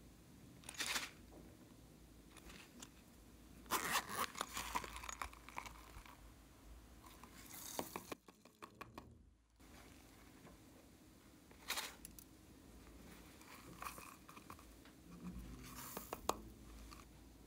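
Small pink plastic cases and packets being handled and torn open by hand over a tray of clear slime: scattered sharp clicks, with a dense stretch of crinkling and tearing about four to five seconds in.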